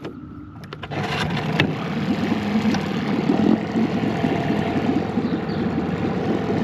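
Boat outboard motor starting about a second in after a few clicks, then running steadily while reversing the boat out of thick weeds in shallow water.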